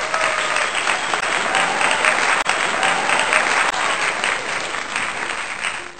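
Dense, steady clapping of a crowd applauding, with a faint hint of voices under it.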